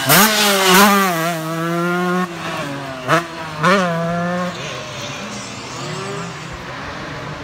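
Suzuki RM144 two-stroke dirt bike engine revving hard over jumps, its pitch swooping sharply up and down, then held steady. Two quick throttle blips come about three seconds in, and after about four and a half seconds the engine drops away, fainter and wavering as the bike moves off.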